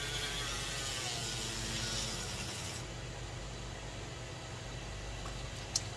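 Handheld battery milk frother whirring as it whisks gravy powder into water in a saucepan, stopping sharply about three seconds in. A steady low hum runs underneath.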